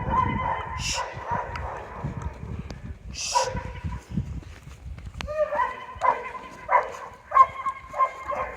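Farm animals calling: a drawn-out call at the start, then a quick run of short, pitched calls in the second half, with two brief hisses in between.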